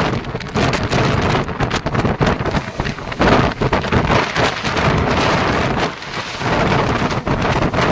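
Rushing wind buffeting the microphone over the running noise of a moving passenger train, loud and gusty, with a brief lull about six seconds in.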